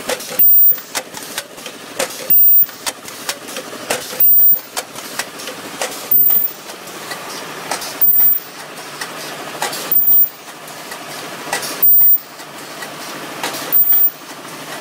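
Ultrasonic plastic welding machine firing weld cycles on kitchen sponge material. Each cycle is a short, loud, high-pitched screech about a third of a second long, repeating about every two seconds (eight times), over steady machine noise.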